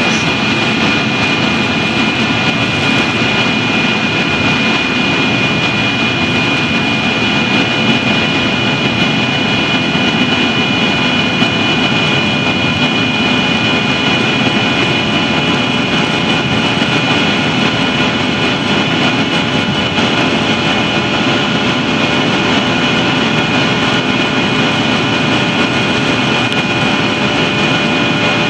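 Yak-42D airliner's three Lotarev D-36 turbofan engines at takeoff power during the climb-out, heard from inside the passenger cabin: a steady loud rush with a constant high whine.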